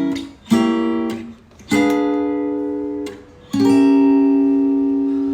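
Acoustic guitar chords strummed three times, each chord left to ring and fade, the last held longest.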